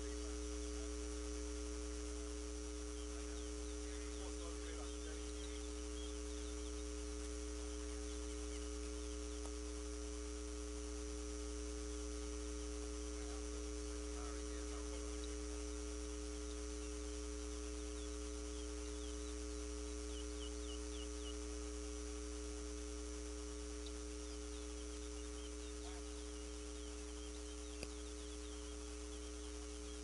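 A steady electrical hum with several constant tones throughout. Faint, short high chirps from caged towa towa finches sound a few times on top of it.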